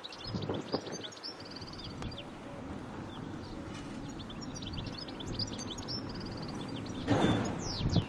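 A small bird singing: two short bouts of quick, high chirping phrases over a steady low outdoor rumble. A brief louder rushing noise comes near the end.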